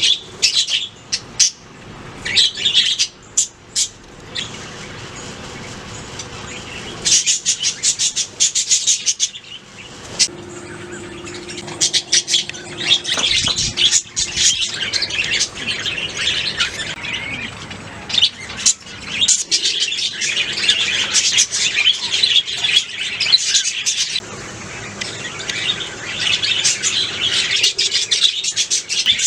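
Budgerigars chirping and warbling: several birds calling over one another in quick trills and chatter, in bouts with brief lulls.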